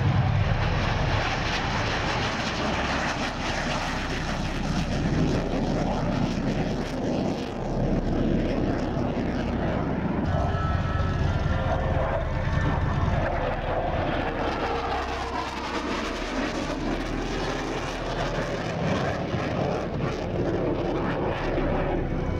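Fighter jet's engine noise as it takes off low along the runway and climbs away: a loud, steady rushing noise, a little louder at the start.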